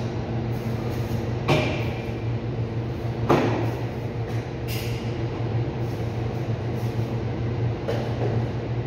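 Steady mechanical hum of a cold room's ceiling-mounted refrigeration unit. Over it come two sharp knocks, about one and a half and three seconds in, and a little fainter clatter near the end, from butchering work on a stainless steel table.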